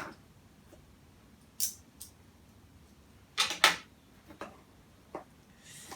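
Packaging of a handheld vacuum cleaner being opened and handled: a short scrape about a second and a half in, two quick louder rustles or knocks around the middle, and a small click near the end.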